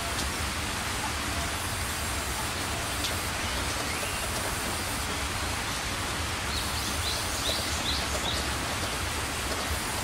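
Band sawmill running, its blade cutting a timber slab into planks: a steady, even hiss of noise. A few short high chirps come in about two-thirds of the way through.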